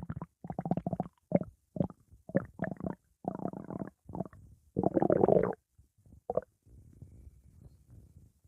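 Stomach growling: a run of short, irregular gurgles, the longest and loudest about five seconds in, then a faint low rumble near the end.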